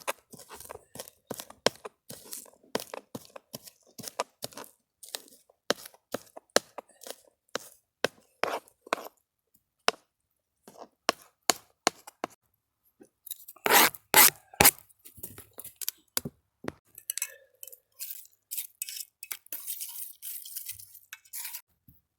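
Metal utensil clinking and scraping against a cooking pot of ramen noodles, in irregular clicks and knocks with a louder cluster about 14 seconds in.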